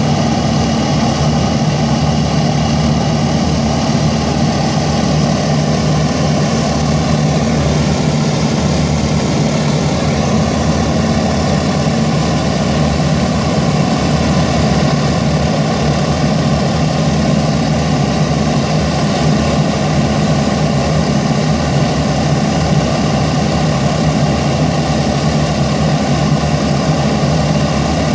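Avro Shackleton MR3's Rolls-Royce Griffon piston engines and contra-rotating propellers running steadily during a ground run, a loud even drone whose pitch shifts slightly about a third of the way in.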